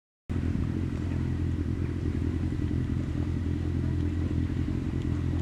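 A steady low drone starts suddenly just after the start and holds unchanged.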